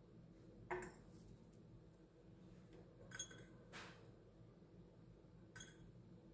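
Whole dried cloves dropped into small glass jars, each landing with a light clink. Four clinks, the first about a second in and the last near the end.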